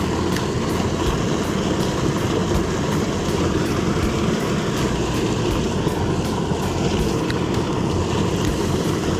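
Water rushing out of a corrugated culvert pipe into a creek, a steady churning outflow swollen by heavy rain.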